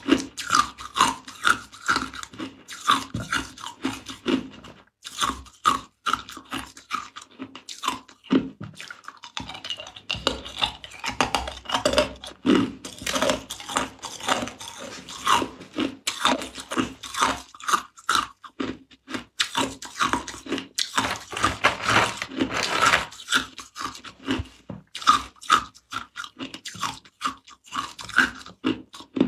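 Clear ice cubes being bitten and chewed: a rapid run of crisp crunches and cracks, with a short lull about a third of the way in.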